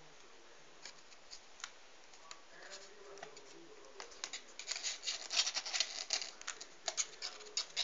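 Kitten's claws scratching and clicking on the rim of a cardboard box: a few faint ticks at first, turning into a busy run of scratches about halfway through.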